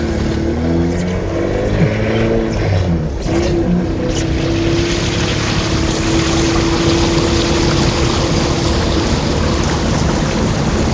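Fiat Panda 4x4 engine running and changing pitch for the first few seconds, then holding a steady note as the car drives into deep flood water. A loud, continuous rush of water sprays against the car from about four seconds in.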